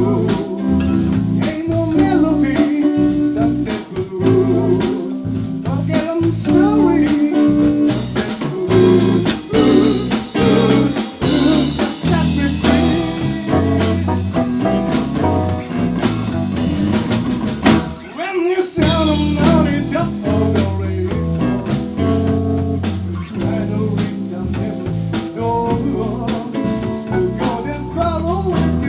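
Blues band playing an instrumental passage, with guitar over a drum kit, and a momentary break about eighteen seconds in.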